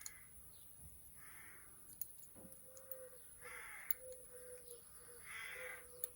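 A crow cawing: three harsh, drawn-out caws about two seconds apart.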